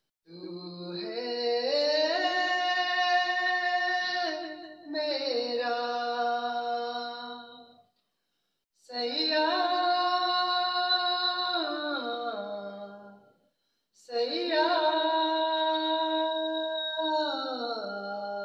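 A young man singing unaccompanied into a handheld microphone, in three long phrases of sustained notes that slide down at their ends, with short pauses for breath between them.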